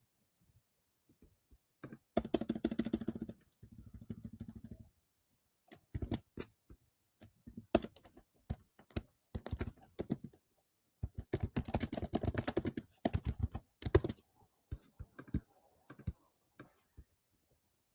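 Typing on a computer keyboard in bursts: quick runs of keystrokes with scattered single clicks between them.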